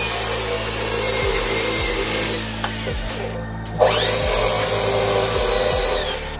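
Electric drill with a long bit boring into a cabinet side panel. The motor runs steadily, winds down about three seconds in, then starts again with a rising whine and runs until shortly before the end.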